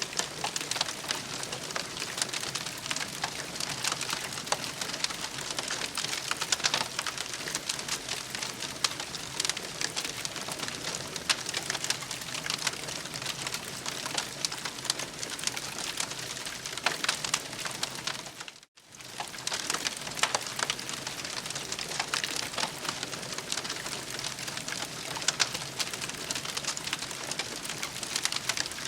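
Campfire crackling steadily, a dense scatter of small pops and snaps over a soft hiss. The sound cuts out for a split second about two-thirds of the way through, then resumes.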